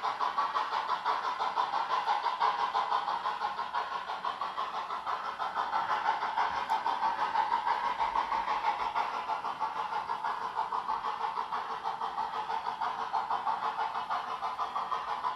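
DCC sound decoder in a ROCO HO-scale USATC S160 steam locomotive model playing steam exhaust chuffs from its small onboard speaker while the model runs, an even beat of about four to five chuffs a second.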